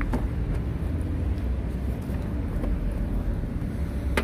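Car engine idling with a steady low rumble. A few faint clicks sound over it, with a sharper knock near the end.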